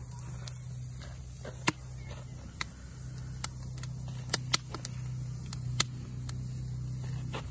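Steaks sizzling on a steel grill grate over a wood campfire, with sharp, irregular pops and crackles from the fire and fat, about ten in all. A steady low hum runs underneath.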